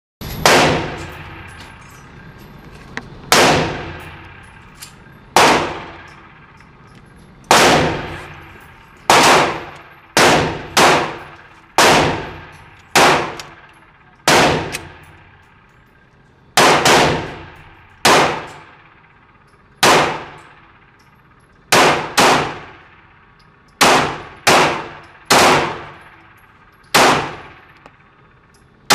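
9mm Glock 19 pistol being fired in a steady string of single shots, about twenty in all, one every second or two with a few quick pairs, each shot ringing away over about a second.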